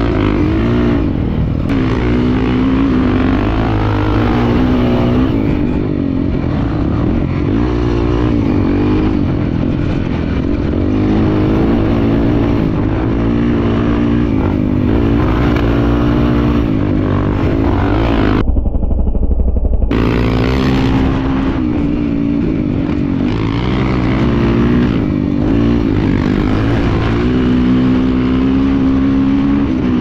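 Single-cylinder trail motorcycle engine running under throttle while riding, its pitch rising and falling as the throttle is opened and eased.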